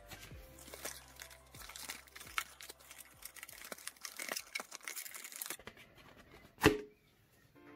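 Paper rustling and crinkling as the pages of a phone's paper manual and a folded card holding a SIM ejector pin are handled, with one sharp knock near the end.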